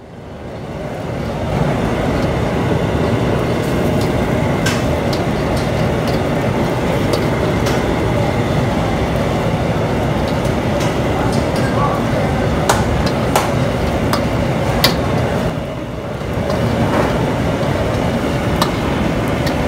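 Steady rumbling machine noise with a faint hum, fading in over the first second or so, with a few light clicks and taps scattered through it.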